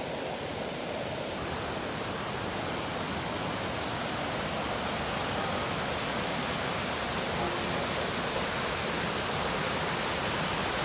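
Steady rush of water from a rain-swollen waterfall and stream, growing slightly louder.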